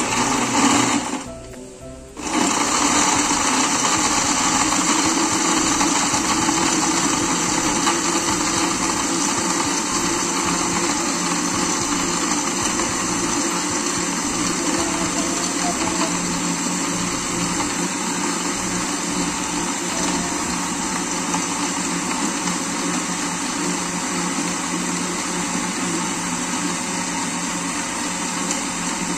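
Electric countertop blender with a glass jar running, blending mango, milk and ice into juice: a short burst at the start, a brief pause about a second and a half in, then a steady run.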